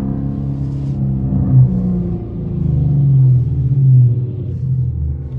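Ford Mustang 5.0 V8 heard from inside the cabin, accelerating with its pitch rising. It dips briefly about two seconds in, then climbs again to its loudest about four seconds in.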